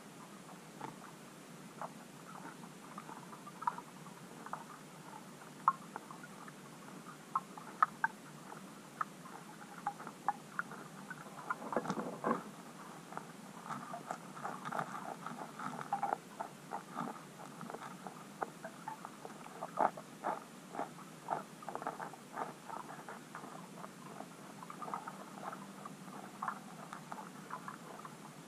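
Underwater clicks and pops from tench and bream feeding in the bottom sediment. They come irregularly, several a second, thickest about twelve seconds in and busy through the middle.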